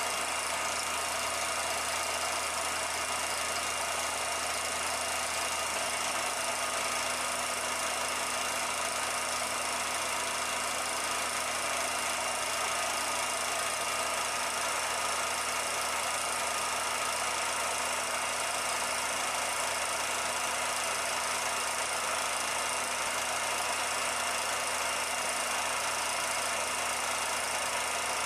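Steady whirr and clatter of a film projector running, unchanging throughout.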